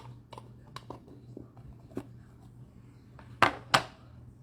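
Light clicks and taps of trading-card packaging being handled and opened, with two sharp louder clicks in quick succession about three and a half seconds in, over a faint steady low hum.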